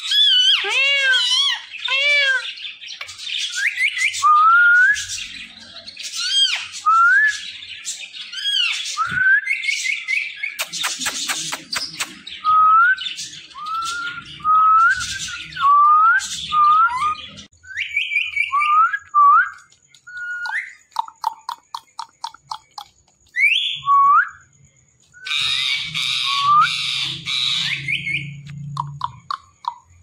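Indian ringneck parakeets calling: a quick run of short arched squawks, then rising whistled notes and harsh screeches. A faint steady high tone runs under the calls through the second half.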